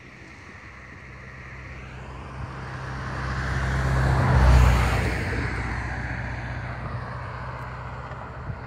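A road vehicle passing close by: its engine hum and tyre noise swell over about four seconds, peak about halfway through, then slowly fade away.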